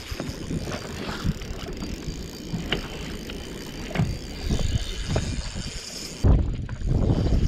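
Choppy water slapping a fibreglass bass boat's hull, with scattered knocks and clicks of rod and gear being handled on the deck. About six seconds in a sudden loud low rumble hits the microphone.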